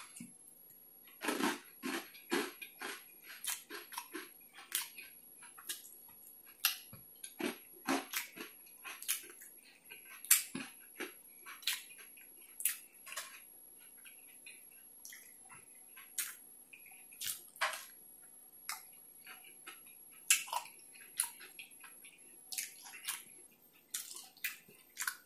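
Close-miked chewing of a mouthful of coleslaw: irregular wet mouth clicks and smacks, several a second, with short pauses between.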